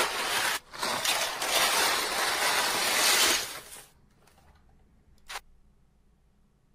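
Dry jumbo pasta shells pouring out of a cardboard box into a disposable aluminium foil pan: a dense rattling that runs for about four seconds with a short break just after the start, then stops. A single sharp click about five seconds in.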